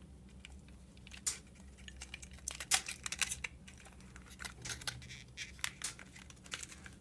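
Hands pulling a laptop hard drive free of its rubber mounting and plastic case: irregular small clicks, crackles and rustles of rubber, plastic and metal parts being handled.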